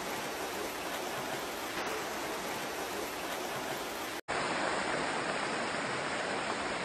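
Steady rushing of muddy floodwater, a mudflow torrent carrying debris and a car down a channel. About four seconds in the sound cuts off for an instant and returns as a slightly louder, brighter steady rush of water.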